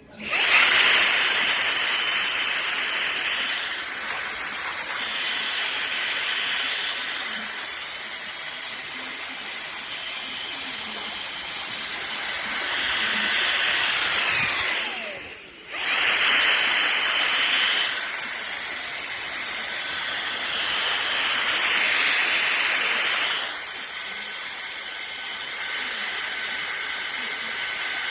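HiKOKI RB18DC cordless blower running, a steady rush of air whose strength steps up and down several times as the speed is changed. About halfway through it is switched off, its whine falling as it spins down, and it starts again within a second.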